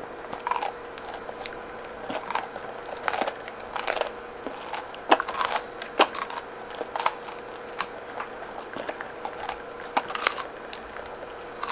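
A corgi biting and chewing a raw bok choy stalk: crisp, irregular crunches, about one or two a second.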